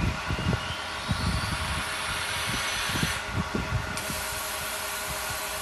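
Automatic mattress roll-packing machine running: a steady mechanical hum with scattered low thumps, and a hiss that swells for about two seconds and cuts off about three seconds in.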